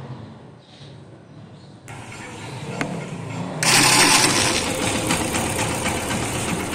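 Yamaha FZ V2's single-cylinder engine being electric-started: the starter cranks with a loud, bad-sounding noise about two seconds in, and the engine catches and runs from about three and a half seconds. The starting noise comes from the starter (self) pinion, whose teeth are worn and half broken off.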